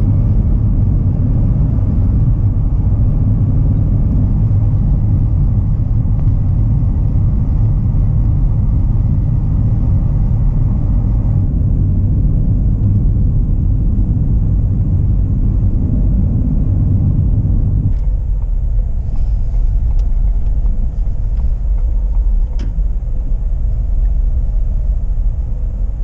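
Car driving on a snowy road, heard from inside the cabin: a steady, loud low rumble of engine and tyre noise. The rumble turns lighter about eighteen seconds in.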